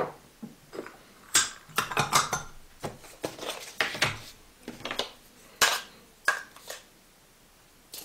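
Irregular metallic clinks and knocks from handling an aluminium moka pot and taking the lid off a coffee tin. There are about a dozen sharp taps, and they stop near the end.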